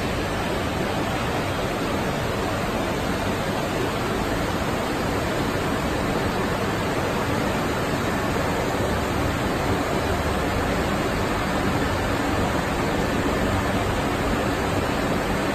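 Steady, even background noise of a large factory hall, with a faint hum under it.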